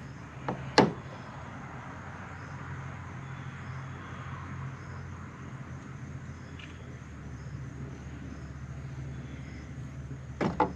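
Quiet outdoor background with a steady low hum and faint insect chirping. A single sharp click comes about a second in, and a quick pair of clicks near the end.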